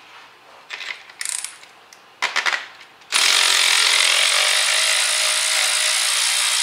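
A ratchet clicks in a few short runs as it is worked by hand on a spark plug. About three seconds in, a cordless electric ratchet's motor starts and runs steadily, spinning the spark plug out of the cylinder head.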